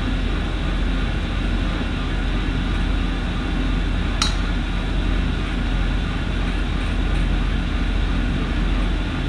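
A steady mechanical hum, with one light click about four seconds in.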